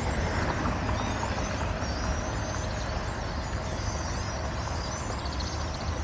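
Dense chorus of a huge flock of small birds calling at once, many short overlapping whistles and chatters, over a steady low rumble.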